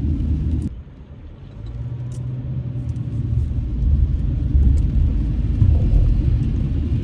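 Low road and engine rumble inside a car's cabin. It drops away abruptly about a second in, then builds back up with a low engine hum over the next few seconds as the car gets moving again.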